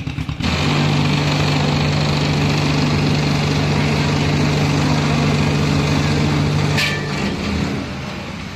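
Engine running steadily at a constant speed with a strong low hum. It comes in sharply about half a second in and drops off about seven seconds in.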